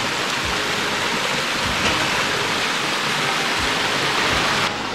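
A small waterfall splashing down a rocky gorge stream: a steady rushing of water that drops abruptly in level shortly before the end.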